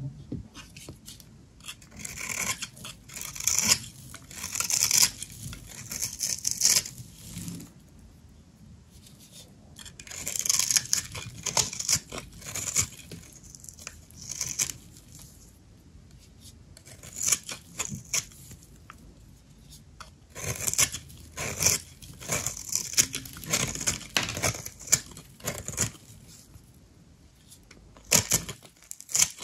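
A knife cutting and scraping through dry soap: repeated crisp, crackly strokes in bursts of a few seconds, with short pauses between them.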